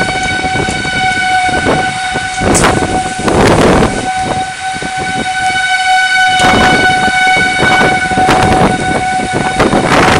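Tornado warning siren sounding one steady high tone, under strong wind gusting in loud rushes against the house, the biggest gusts about three seconds in and again from about six seconds on.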